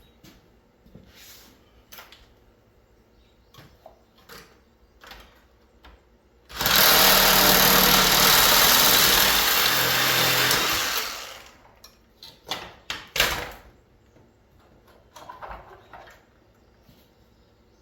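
A Sawzall reciprocating saw runs for about five seconds, cutting through a mini split's copper tubing; its motor drops in pitch about a second before it stops. Light metal knocks come before it, and a few sharp clanks follow.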